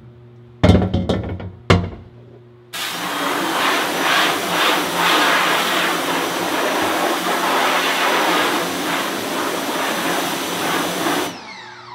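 Two loud knocks about a second apart, then a pressure washer spraying a screen-printing screen: a loud, steady hiss of the jet on the mesh that cuts off suddenly near the end. It is rinsing ink remover and red ink out of the screen.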